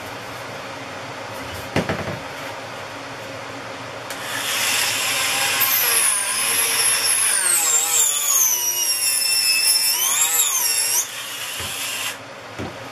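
Dremel rotary tool with a small cutting bit running at high speed and cutting into a carbon-fibre composite tube: a loud high whine that dips and rises in pitch as the bit bites, starting about four seconds in and stopping suddenly about eleven seconds in. Under it runs the steady hum of a workshop air filtration unit, with a single knock about two seconds in.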